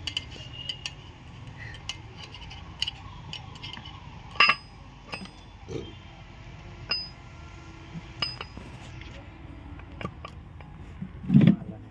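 Steel engine parts clinking and tapping as mass-balancer shafts and their gears are handled and meshed by hand in an open crankcase: scattered sharp metallic clicks, a few louder ones through the middle, and a heavier knock near the end.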